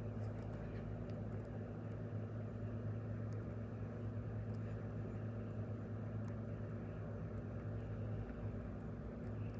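Steady low machine hum with an even whir over it, like a running motor.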